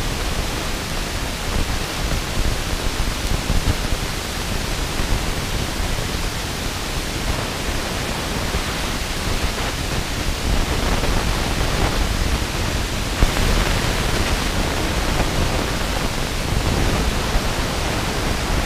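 Wind rushing over the microphone during a parachute descent: a steady, unbroken rush, heaviest in the low end. About two-thirds of the way through it turns brighter and a little louder.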